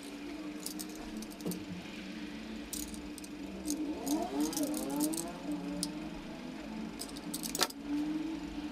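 Light, irregular clicks and scrapes of a snap-off utility knife and thin wires being handled, with one sharper click near the end, over a steady low hum.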